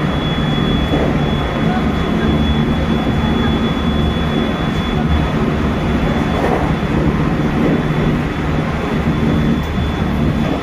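Hokuhoku Line train running at speed, heard inside the leading car: a steady low rumble of wheels and running gear with a thin, steady high tone over it.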